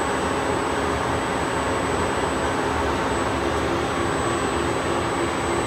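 MASTEEL CNC hollow-spindle lathe running with its 32-inch four-jaw chuck spinning: a steady mechanical drone from the headstock, with faint steady tones underneath.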